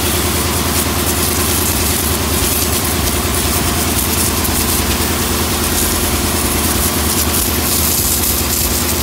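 High-pressure washer running steadily: its pump motor hums under the hiss of the water jet striking a combine harvester's spike-tooth threshing drum.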